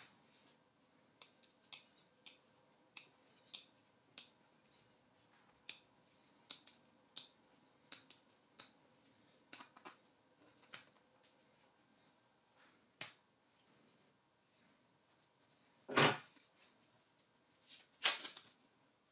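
Small, irregular metallic clicks and ticks as a hex key is worked in a brass hammer head during assembly. Near the end come a solid knock, then a loud, bright metallic clatter.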